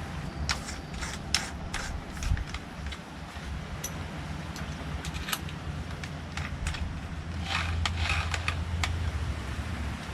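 Scattered light clicks and taps of small tools and hardware being handled, thicker for a moment near the end, over a steady low hum.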